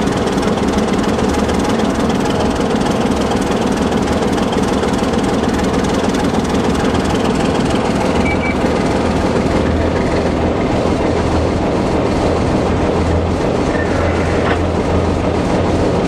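Baldwin DS-4-4-1000 diesel switcher locomotive running along the line pulling a long string of tank cars, heard from its cab: a steady engine drone mixed with wheel and rail noise. The low engine drone grows stronger about halfway through.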